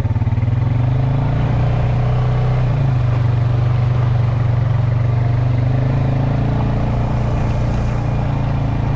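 Engine of a four-wheel-drive farm vehicle running steadily under load as it drives through wet pasture in four-wheel drive, with a small shift in engine pitch about three seconds in.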